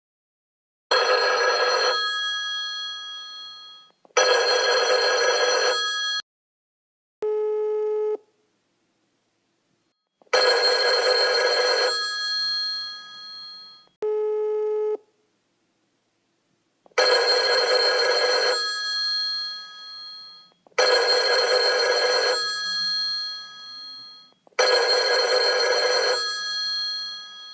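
Telephone bell ringing six times, each ring about a second long and then trailing off. Twice between rings comes a short, steady telephone ring-back tone, the caller's side of the unanswered call.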